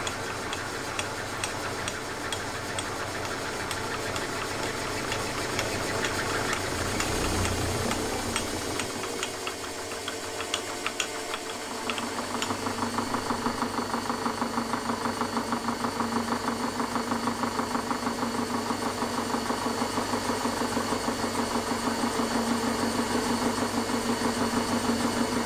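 Milling machine spindle running as a large end mill cuts across an aluminium block, with scattered light ticks in the first half. About halfway through the cutting changes to a steadier, fast, even pulsing over a low hum.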